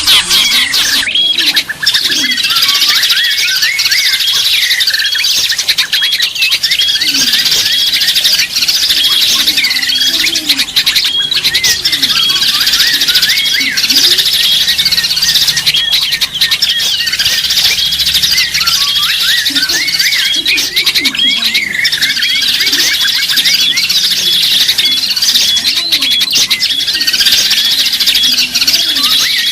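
Dense chorus of many small birds chirping and twittering at once, their short calls overlapping without a break, with a few lower, sliding calls underneath.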